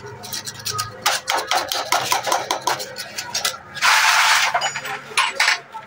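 Quick metallic clicks and knocks as a connecting rod is worked inside the piston of a small air-cooled diesel engine. About four seconds in comes a loud hiss lasting about a second, then a few more clicks.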